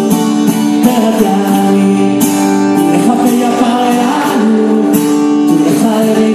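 Live rock band playing, with guitars over a beat of repeated percussion hits.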